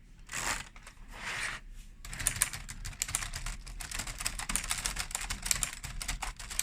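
Keys of a LEGO typewriter model being pressed in quick succession, a dense run of light plastic clicks like fast typing, starting about two seconds in after a couple of soft rustles.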